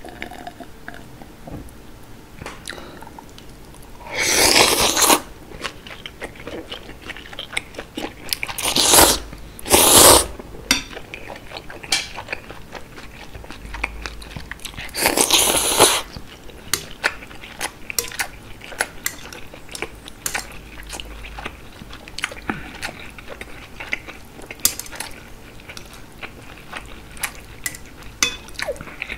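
Close-up eating of chewy noodles in spicy broth. Four loud wet slurps of about a second each, one about four seconds in, two close together around nine and ten seconds, and one around fifteen seconds. Between them, steady chewing and small sharp clicks.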